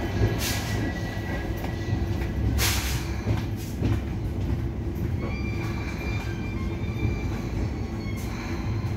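Passenger train running slowly, heard from inside the coach: a steady low rumble of wheels on the track with thin, high wheel squeal, and two short hissing bursts in the first three seconds.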